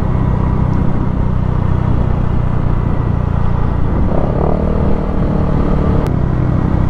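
Motorcycle engine running steadily at cruising speed, a low, even drone heard from the rider's own bike. From about four seconds in, a second, higher engine note joins for about two seconds.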